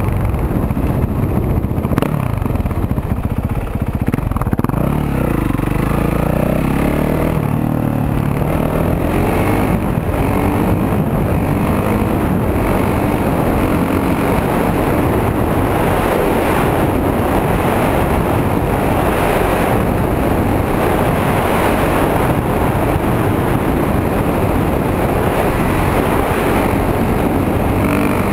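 Single-cylinder four-stroke dirt bike engine pulling away and rising in pitch as it accelerates, then running steadily at road speed with wind and road noise.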